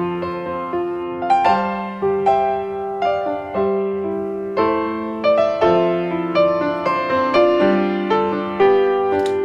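Background piano music: a gentle tune of single struck notes with soft chords, each note fading after it is played.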